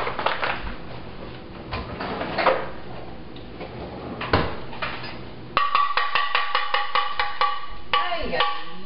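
Flour poured from a measuring cup into a plastic mixing bowl, with a couple of knocks. About five and a half seconds in, music with a quick, even percussive beat starts abruptly.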